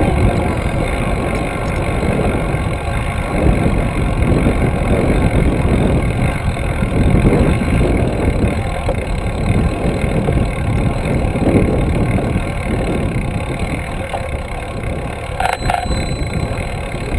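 Wind buffeting the microphone of a handlebar-mounted camera on a moving trail-a-bike: a loud, steady low rumble that swells and fades unevenly. A short click comes near the end.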